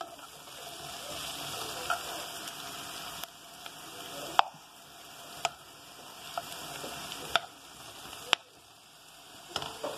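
Diced zucchini sizzling steadily in olive oil in a frying pan as it is stirred, with a few sharp clicks of a utensil against the pan. The pieces are browned (golden).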